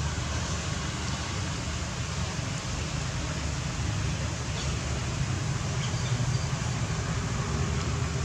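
Steady outdoor background noise: a low rumble with an even hiss over it, and no distinct events.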